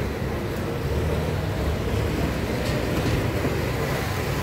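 A vehicle's engine running steadily under way, a continuous low droning rumble.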